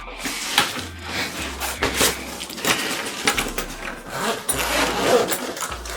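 Packaging being handled: a plastic bag and a small cardboard box rustling, crinkling and clicking in quick irregular knocks and scrapes.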